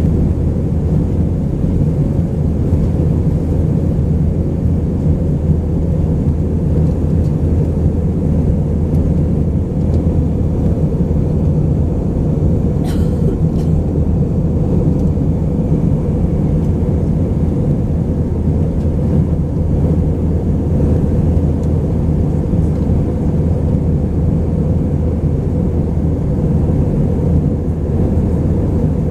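Airliner cabin noise inside an Airbus A319 with IAE V2500 turbofans: a steady, loud rumble of engines and airflow.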